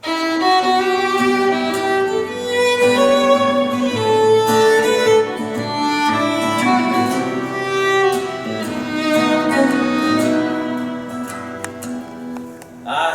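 Violin playing a slow instrumental introduction of long held notes, with guitar underneath. The music starts suddenly, dips briefly near the end, then picks up again.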